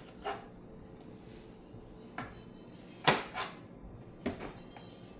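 Kitchen knife knocking on a cutting board as vegetables are cut smaller: five or so sharp, irregular knocks, the loudest about three seconds in.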